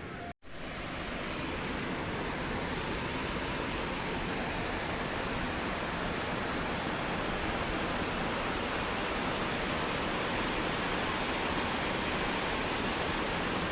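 Steady rush of flowing river water, even and unbroken, after a brief cut-out in the sound just after the start.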